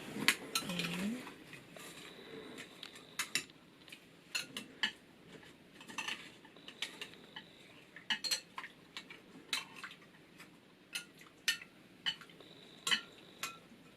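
Scattered light clinks and knocks against a bowl as sticky rice is stirred in hot water, a wash that takes off some of the rice's surface stickiness before cooking.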